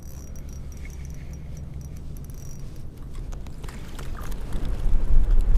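Wind buffeting the microphone in a low, steady rumble that gusts much louder near the end.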